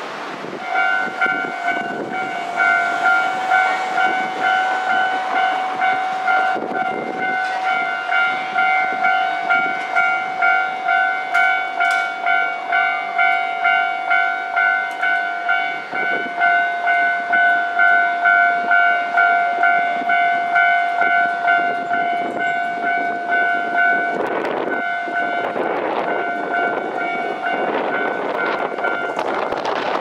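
Japanese railway level-crossing warning bell ringing in a steady rhythm of about one and a half strikes a second, held down while trains pass; near the end a train rumbles through over the tracks.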